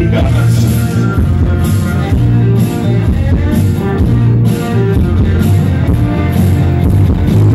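Loud dance music played over a DJ sound system, with a heavy, steady bass beat.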